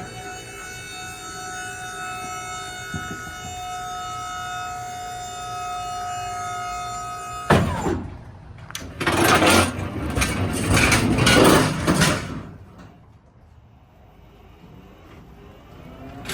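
Electric motor of pallet-handling machinery whining steadily for about seven seconds. Then a sharp clank, followed by several seconds of loud metallic rattling and clattering as the heavy pallet load is moved.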